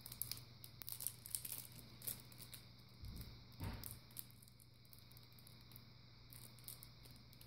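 Faint crinkling and tearing of a Pokémon theme deck's packaging being handled, in scattered rustles over the first few seconds with a soft thump about three and a half seconds in. After that only a low steady hum remains.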